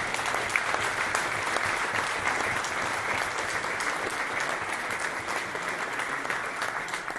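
Large audience applauding steadily, many hands clapping at once.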